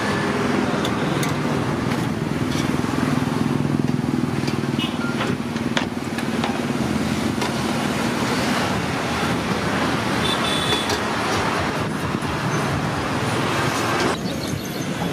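Busy road traffic running steadily, with the hum of passing engines and a few brief clicks and clatters.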